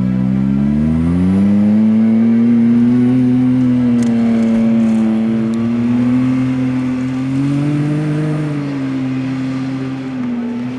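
Rally-raid car's engine running hard under load. Its pitch climbs about a second in, holds, rises again around eight seconds and then eases off slightly.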